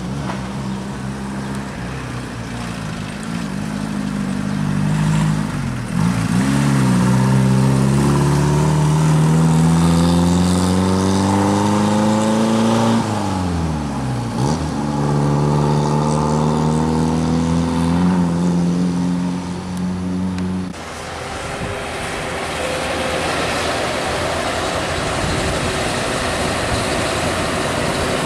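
An engine whose pitch climbs steadily for several seconds, dips sharply and climbs again, then cuts off abruptly about 21 seconds in, leaving a steady rushing noise.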